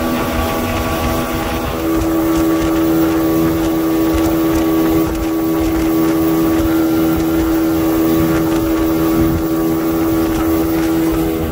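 Outboard motor of a 19-foot Robalo boat running steadily at planing speed, its engine note growing a little louder about two seconds in, over a rush of wind and water spray.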